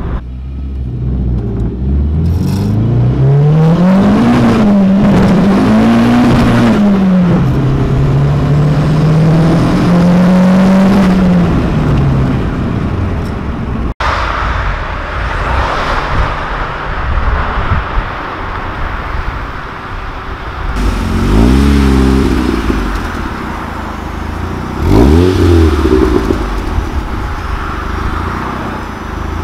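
Turbocharged 1.8T four-cylinder of a tuned VW Lupo (GT30 turbo) pulling hard up through the gears, its pitch climbing and dropping at each of two quick gear changes before fading. After a cut, an engine revs twice in short rising bursts.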